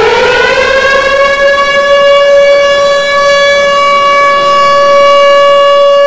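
Air-raid siren wailing loudly: its pitch rises during the first second, then holds one steady tone. It is the air-raid alert that sends people into shelters.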